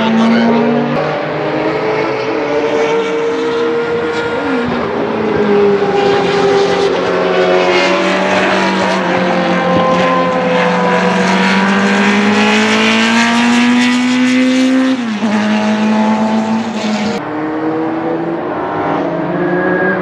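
Ford Cosworth DFL 90° V8 of a Tiga GC289 Group C2 race car running at high revs on track. Its pitch climbs slowly over several seconds, then drops suddenly about fifteen seconds in.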